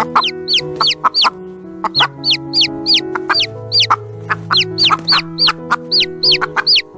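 Chickens calling in short, high, quickly falling peeps, two or three a second, over background music of held notes.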